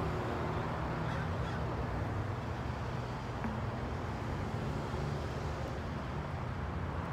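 Steady low rumble of motor vehicles: engines running and road traffic.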